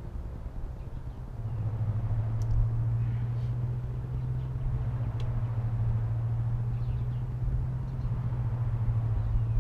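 Toro mower's Kawasaki engine running steadily with a low, even hum that gets louder about a second and a half in.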